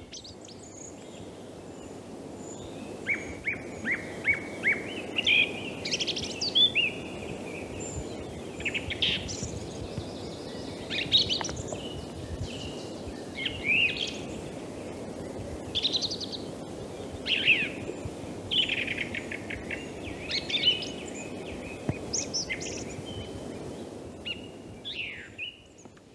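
Song thrush singing: intense, clear phrases, each motif repeated several times before moving to the next, heard over the steady background noise of the field recording.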